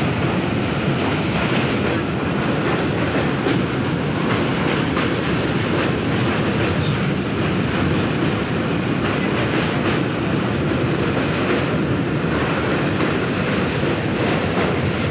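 Express passenger train running across a steel truss bridge, heard from an open coach doorway: a steady rumble with the clatter of wheels on the rails.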